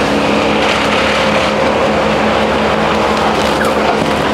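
An engine running steadily at a constant speed, its pitch unchanging.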